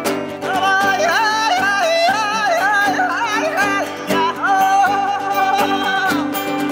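Two acoustic guitars playing together, strummed and picked, under a woman's high wordless singing that glides and wavers in pitch, coming in about half a second in and stopping shortly before the end.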